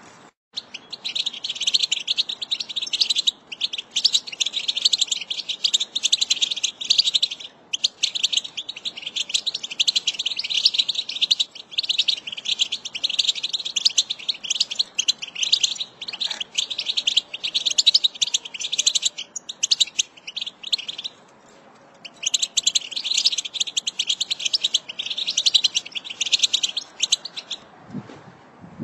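American goldfinch singing a long, rapid twittering song of quick high notes, broken once by a pause of about a second roughly three-quarters of the way through before it resumes.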